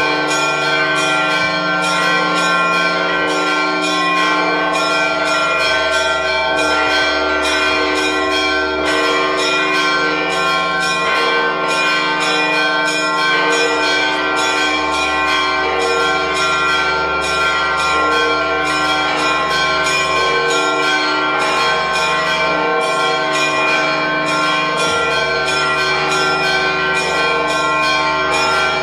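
Church bells ringing continuously in a fast, overlapping peal, with strikes about three times a second over many lingering tones: the festive ringing that greets the Holy Fire.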